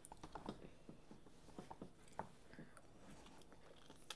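Faint eating sounds: children chewing jjajangmyeon (black bean sauce noodles) and working them with plastic forks, with scattered light clicks and ticks and a slightly sharper click near the end.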